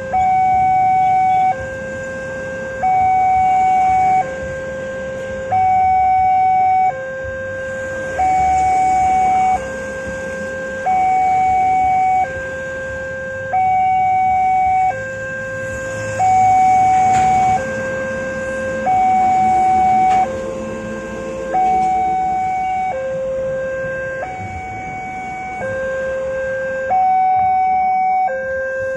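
Railway level-crossing warning alarm from the loudspeaker on the signal post, sounding an electronic two-tone signal that alternates a higher and a lower tone, each held about a second and a half. It is the warning that a train is approaching the crossing, with the barrier down and the red light flashing.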